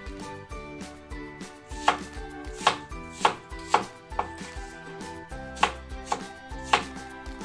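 Chef's knife dicing an apple on a wooden cutting board: about ten sharp, irregularly spaced knocks as the blade cuts through the fruit and strikes the board.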